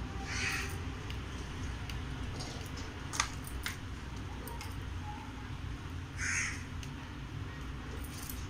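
A crow cawing twice, one short harsh call about half a second in and another a little after six seconds, over a low steady hum. A single sharp click comes in between.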